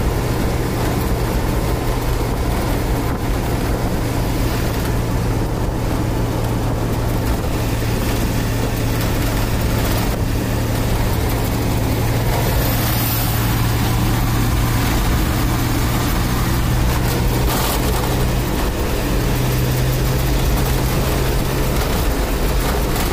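Steady engine hum with road and wind noise, heard from inside a moving vehicle at cruising speed.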